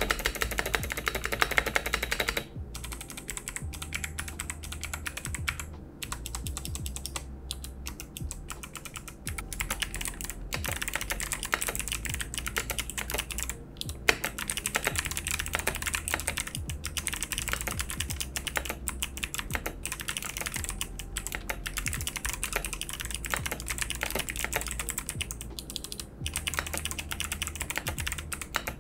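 Typing on a Cooler Master CK720 65% keyboard with clicky Kailh Box V2 White switches: continuous runs of fast keystrokes broken by a few brief pauses. The switches are clicky but not shrill, and the plastic case, damped by two silicone layers, does not sound hollow.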